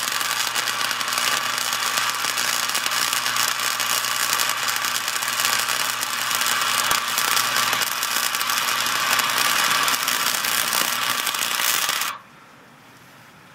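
Flux-cored arc welding with a 90-amp Harbor Freight wire-feed welder: a steady, dense crackle of the arc and spatter, stopping abruptly about twelve seconds in when the trigger is released. The steel flux-core wire is being fed at a very high wire speed onto aluminum plate, which it cannot weld properly.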